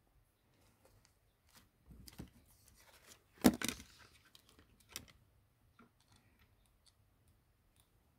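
Scattered light clicks and taps from handling small smartphone parts, with one louder rustling scrape about three and a half seconds in.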